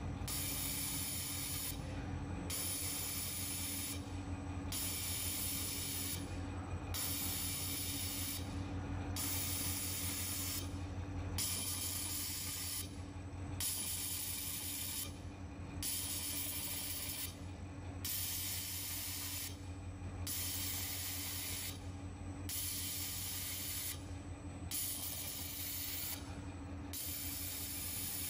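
Automatic fiber laser welding machine welding stainless steel pillow plate: a steady hiss that drops out briefly about every two seconds, over a steady low machine hum.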